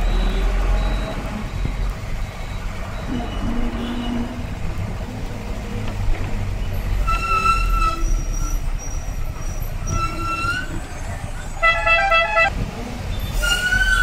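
Street traffic with a steady low engine rumble. From about halfway through, vehicle horns toot several times at different pitches, one of them a rapid string of beeps near the end.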